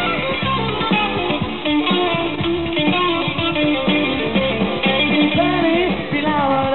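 Live rock band playing an instrumental passage, with electric guitar to the fore over drums and bass.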